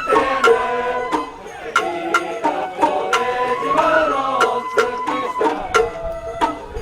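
Sawara-bayashi festival music: a wavering high melody line over drums, with sharp percussive strikes about twice a second.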